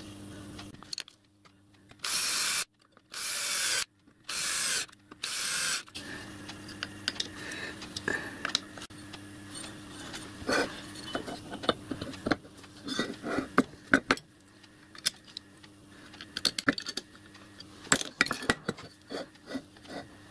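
Metal parts of a small lathe (cast bed, spindle and brackets) handled and set down on a steel plate: scattered clinks, knocks and scrapes of metal on metal over a faint steady hum. About two seconds in come four short, loud bursts of hiss, each under a second, with near silence between them.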